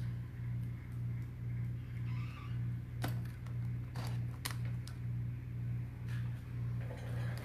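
Tumbler cup turner's motor humming steadily, swelling about twice a second. A few sharp metallic clicks about three and four seconds in as the metal rolling tray is set onto the turner's magnet attachment.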